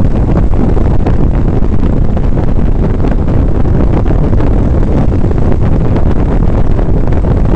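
Loud, steady wind buffeting on the microphone of a motorcycle riding at road speed, with the bike's engine and road noise mixed in underneath.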